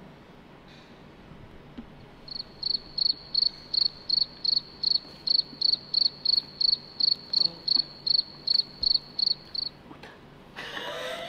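Cricket chirping: about twenty evenly spaced high chirps, between two and three a second, starting about two seconds in and stopping shortly before a brief noise near the end.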